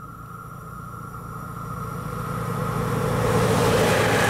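DB class 212 diesel-hydraulic locomotive running on its own, approaching and passing close by. Its engine drone grows steadily louder, and wheel and rail noise swells in near the end as it comes alongside.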